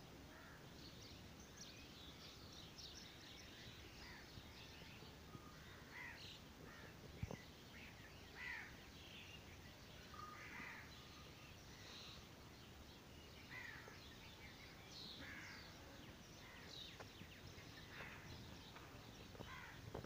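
Faint pre-dawn chorus of many birds, short chirps and calls overlapping throughout over a steady background hiss. A single sharp click about seven seconds in.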